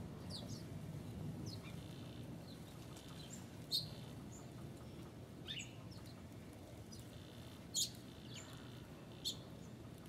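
Small songbirds calling around a winter feeder: scattered high chirps and short falling call notes, with three sharper, louder chips about four, eight and nine seconds in, over a low steady background rumble.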